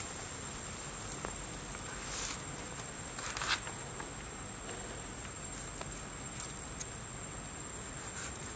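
A steady high insect whine over faint hiss, with a few short knocks and scrapes from a steel cleaver and hands handling a raw salmon fillet on a wooden cutting board.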